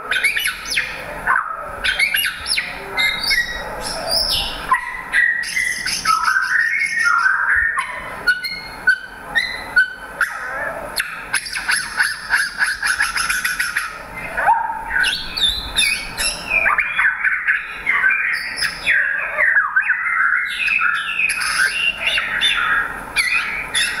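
White-rumped shama singing: a long, varied run of clear whistles, slurred notes and rapid trills and chatters.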